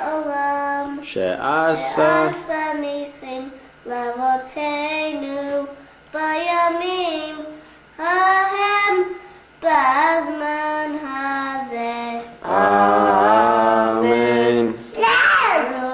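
A young boy singing in phrases of held notes, with short breaks between them.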